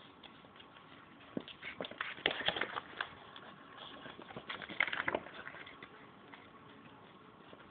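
Boston terrier at play close by, making two bursts of rapid clicking and scuffling, one about two seconds in and another about five seconds in.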